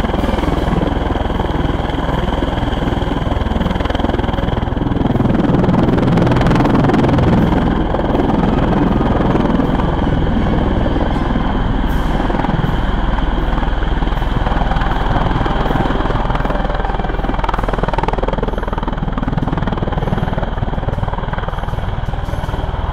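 CV-22 Osprey tilt-rotor taking off in helicopter mode, its two turboshaft engines and proprotors at takeoff power: a loud, steady rotor-and-turbine noise with a high whine, swelling about five seconds in and easing a little after about eight seconds.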